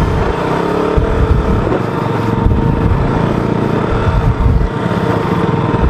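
KTM RC motorcycle's single-cylinder engine running in low gear as the bike crawls over a rocky dirt trail, its rumble rising and falling with the throttle.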